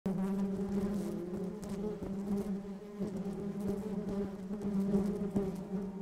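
Honeybees buzzing around an opened hive: a steady, low hum with slight wavers in pitch.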